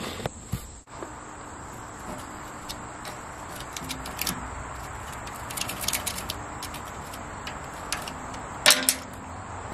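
Small steel screwdriver scratching and picking packed dirt out of a recessed hex socket screw head on a steel loader tooth bar. It gives faint scattered clicks and scrapes, with a louder burst of sharp scrapes near the end, over a steady background hiss.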